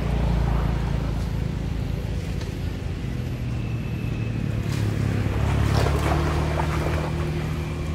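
Macaques splashing through floodwater about five to six seconds in, over the steady low hum of an engine running throughout, its pitch stepping up about three and six seconds in.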